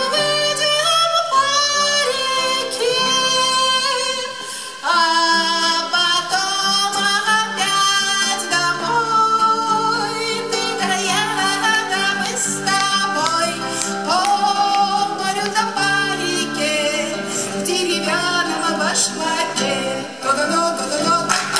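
Live dance music with acoustic guitar accompaniment and a high melody line with singing, playing without a break.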